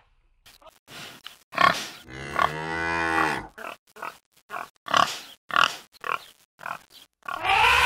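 Wild boar sound effects: a string of short grunts and squeals, with one longer drawn-out call about two seconds in and another starting near the end.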